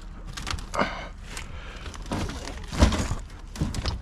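Curbside debris knocking and crackling, a few separate knocks with the loudest about three seconds in.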